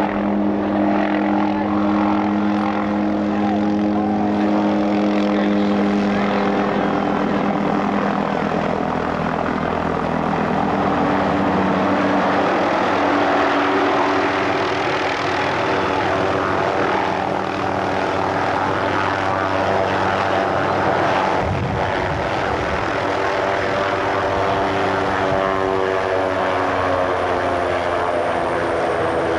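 Hughes 500-series helicopter flying in and landing, its rotor and turboshaft engine running the whole time. A loud, steady drone whose tones shift in pitch as it approaches and settles on the ground.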